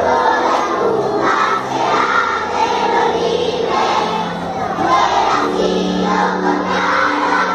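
A group of young children singing an anthem together in unison, holding long notes.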